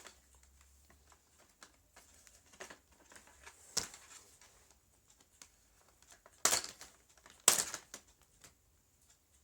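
Plastic clips of an HP Pavilion G6 laptop's top case clicking and snapping loose as the case is pried off, with scattered light ticks in between; the two loudest snaps come about six and a half and seven and a half seconds in.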